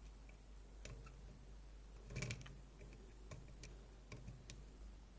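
Faint, scattered small metal clicks and ticks of a dimple pick working the pin stack inside a DOM iX6SR dimple lock, about eight light clicks with the loudest cluster about two seconds in.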